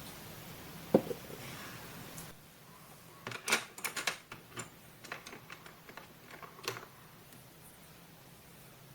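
Paper and craft tools handled on a desk for collage work: a single soft knock about a second in, then a run of crisp clicks and rustles in the middle, dying away near the end.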